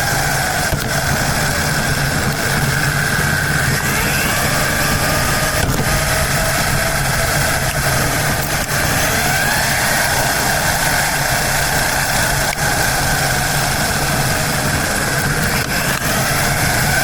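Radio-controlled car's motor running steadily with a high whine that glides up and back down in pitch a few times as the throttle changes, about four seconds in, around ten seconds, and again near the end.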